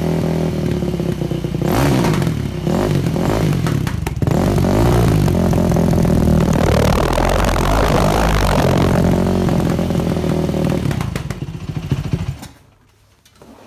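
Dirt bike engine running through an exhaust fitted with a homemade screen spark arrestor. It idles at first, then is revved up and let back down again and again, and stops suddenly near the end.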